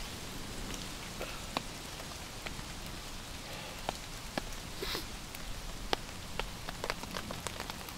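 Steady rain falling on the tent fabric, with scattered sharp clicks over it.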